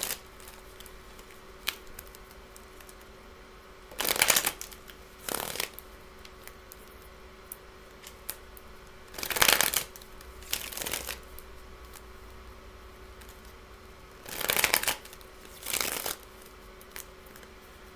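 A tarot deck being shuffled by hand: three pairs of short shuffling bursts about five seconds apart, with light card clicks between them.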